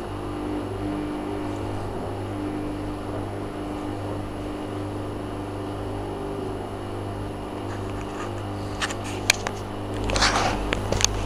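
Samsung WF9700N3W front-loading washing machine on its wool cycle, its motor humming steadily as the drum slowly turns a load of wool blankets. A few clicks come about nine seconds in, and a louder swish near the end.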